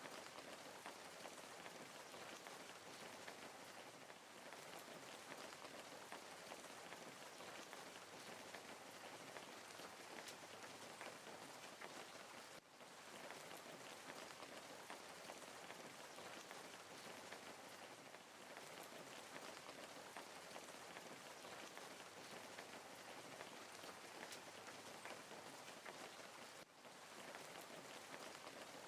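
Wood fire crackling steadily and quietly: a dense hiss of many small pops and snaps, dipping briefly about halfway through and again near the end.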